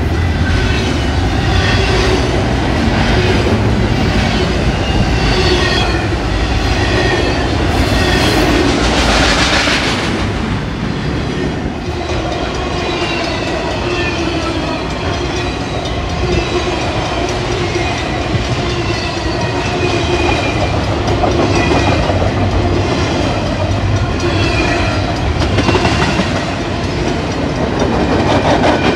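Double-stack intermodal freight train's well cars rolling steadily past, wheels clattering over the rails with a wavering, repeating squeal of steel wheels. A brief louder hiss comes about nine seconds in.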